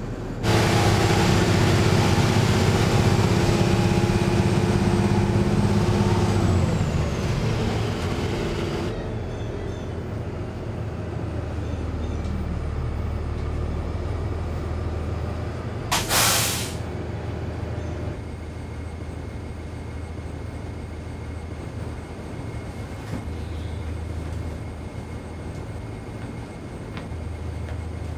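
School bus engine running loud, then winding down to a lower steady rumble. About sixteen seconds in comes one short, sharp air-brake hiss.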